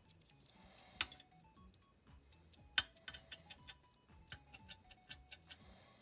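Badufa cuckoo clock movement ticking in a quick steady run of clicks, with two louder clacks about one and three seconds in. Faint music plays underneath.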